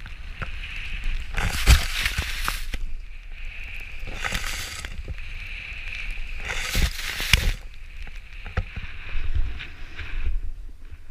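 Snowboard carving turns through deep powder, with three louder hissing sweeps of spraying snow on the turns, over a steady low rumble of wind on the microphone.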